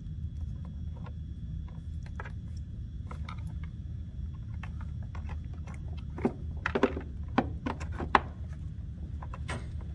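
Scattered light clicks and rattles of a plastic circuit board and its wire connectors being handled and pushed into the mower's housing, with a denser run of sharper clicks about six to eight seconds in, over a steady low hum.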